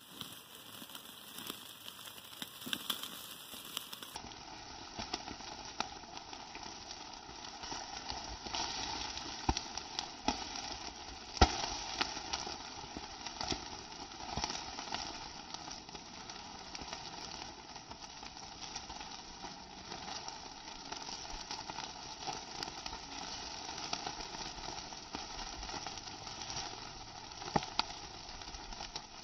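Chicken sizzling on a grill grate over wood charcoal: a steady hiss with scattered sharp crackles and pops, the loudest pop about eleven seconds in.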